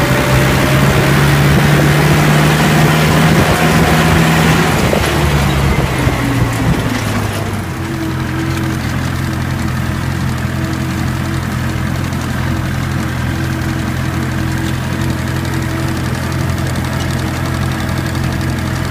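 Tractor diesel engine running steadily. About eight seconds in the sound changes to a steadier, slightly quieter engine note.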